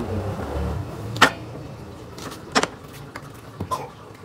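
Food being handled on a plastic cutting board, an egg among it set down: three sharp knocks roughly a second apart, the first the loudest, with a few lighter taps and low handling rumble.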